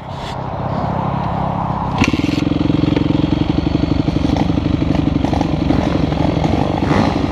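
Motocross bike engine running at a steady idle; about two seconds in a sharp clack is heard and the engine then runs louder and higher.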